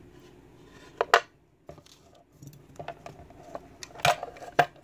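Small metal lock parts handled and set down on a wooden pinning tray: two sharp clicks about a second in, light ticks, then a cluster of louder clacks near the end.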